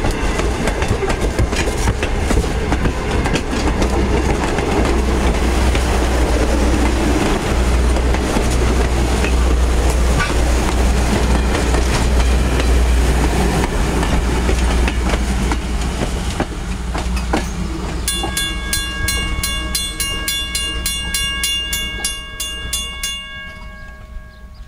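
Strasburg Rail Road passenger coaches rolling past close by behind steam locomotive No. 90, their wheels clicking over the rail joints. The sound fades as the train draws away. About two-thirds of the way in, a ringing with rapid strikes, three to four a second, sounds for about five seconds and then stops.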